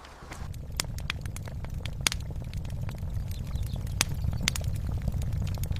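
Fire crackling: irregular sharp pops and snaps over a steady low rumble that sets in just after the start.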